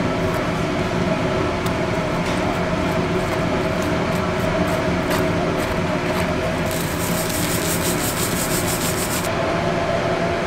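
A spoon scraping and spreading butter over a thick martabak pancake in its pan, over a steady kitchen hum. About seven seconds in come two seconds of quick, even scratchy strokes, about six a second.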